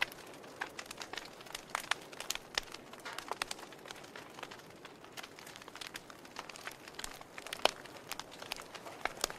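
Wood fire crackling: burning logs giving off irregular sharp pops and snaps over a soft steady hiss, with one louder pop near the end.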